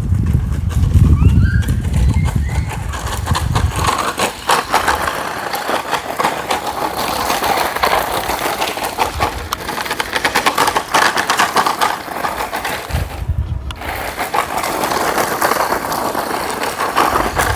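DEERC 9308E electric RC truck driving, its motor and tyres making a steady busy noise with a heavy low rumble in the first few seconds. The sound breaks off for a moment about two-thirds through, then resumes.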